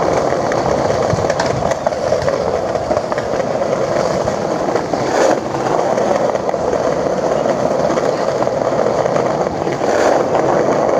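Skateboard wheels rolling over pavement, a steady rolling noise with a couple of sharp clicks, one about halfway through and one near the end.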